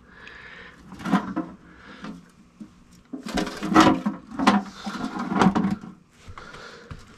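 A run of knocks and scrapes of things being handled. There are a few near one second in, and they come thicker and louder from about three to six seconds in.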